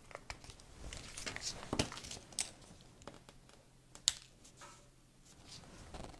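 Light rustling and small taps of paper and cardstock as a die-cut paper snowflake is pressed onto glue dots on a card tag, with a sharp click about four seconds in.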